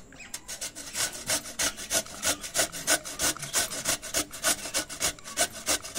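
Peeled raw papaya being grated on the coarse holes of a stainless steel box grater: rapid, even rasping strokes, about four a second.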